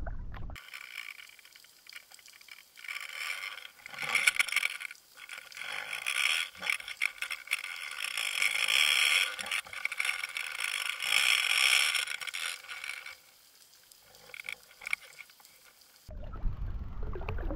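Sound picked up by an underwater fishing camera rigged on the line as it is reeled up: water rushing past the housing with scraping and clicking. It swells and fades several times and gets quieter for the last few seconds.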